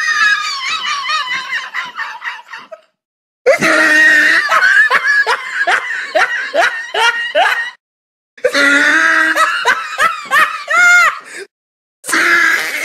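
Hard, loud laughter in rhythmic ha-ha pulses, in three stretches each broken off by a sudden short gap of dead silence.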